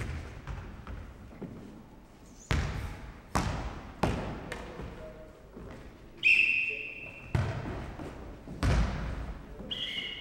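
A futnet ball bouncing on a wooden sports-hall floor: about five sharp thuds, each with an echoing hall tail. A brief high squeal sounds twice, a little past halfway and again near the end.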